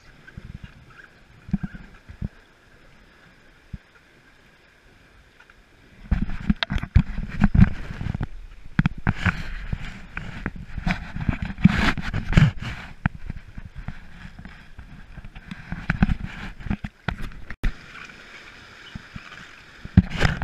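Rushing whitewater and paddle strokes around an inflatable raft: quiet with a few knocks at first, then from about six seconds in much louder and choppier, with splashes and frequent knocks against the boat.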